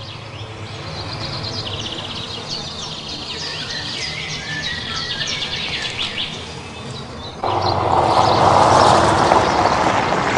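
Birds chirping and singing over a quiet outdoor background. About seven seconds in it cuts abruptly to louder, steady street noise with a car engine running.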